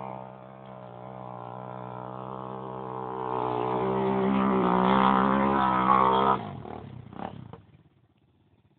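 ATV engine running steadily, getting louder from about three seconds in, then dropping away sharply around six seconds and fading out to silence near the end.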